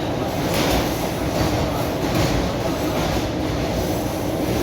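Inside a moving electric commuter train: the steady rumble of the carriage running at speed, with the wheels clacking over the rail joints.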